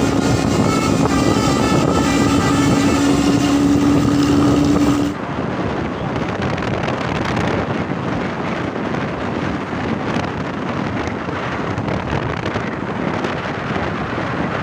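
Bus engine and exhaust running on the road, with wind on the microphone. For about the first five seconds a steady high tone with overtones sounds over it. Then an abrupt cut leaves a rougher, duller engine and road noise.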